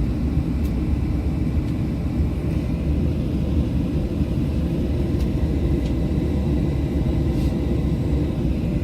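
Boeing 737-700 cabin noise heard from inside the cabin: a steady low rumble of the engines and airframe, with a few faint ticks.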